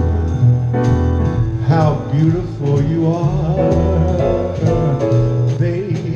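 Live band music: piano and drum kit over a heavy bass line, with a lead melody that bends and slides in pitch.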